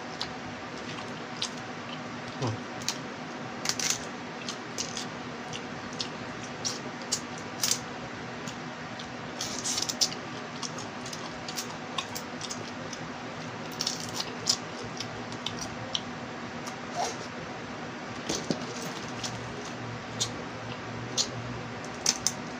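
Eating sounds: small boiled crabs being cracked and picked apart by hand, with wet chewing and lip smacking. They come as scattered sharp clicks, a few crowded together now and then, over a steady low background hum.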